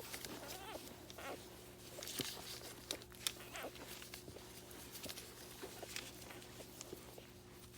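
Newborn Soft Coated Wheaten Terrier puppies nursing: faint suckling and smacking clicks with small squeaks and grunts scattered throughout, over a steady low hum.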